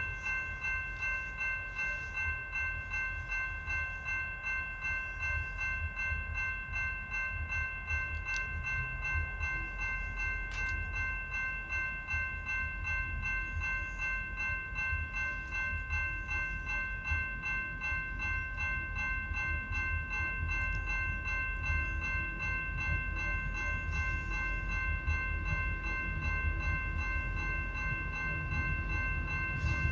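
Level crossing warning bell ringing steadily, about two strokes a second, the signal that a train is approaching. Under it, the low rumble of an approaching V/Line N class diesel locomotive grows slightly louder near the end.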